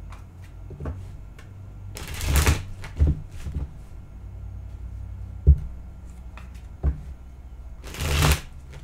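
A deck of tarot cards being shuffled by hand: two riffle shuffles with a quick flutter of cards, about two seconds in and near the end, and a few sharp knocks in between.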